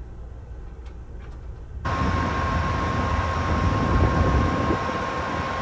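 Low rumble of the train riding, then an abrupt change about two seconds in to an Amtrak Siemens ALC-42 Charger diesel-electric locomotive idling at the platform: a loud steady engine rumble with a steady whine over it.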